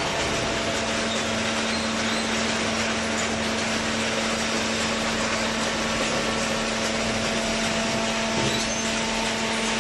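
Hydraulic horizontal paper baler running: steady machine noise with a constant low hum.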